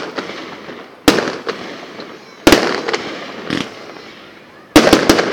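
Aerial firework shells bursting overhead: sharp bangs about a second in and again past halfway, then a quick run of three near the end. Each bang trails off in a rolling echo, with smaller pops between.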